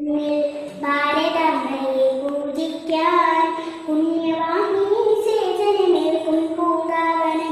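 A young girl singing solo, in long held notes.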